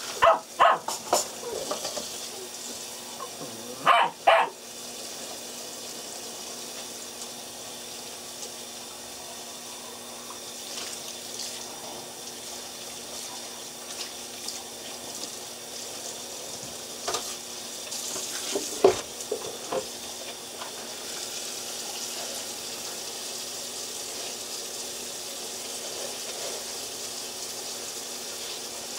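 A puppy gives a few short, loud yips just after the start and two more about four seconds in, with another short yelp about two-thirds of the way through. Under them runs a steady hiss like running water.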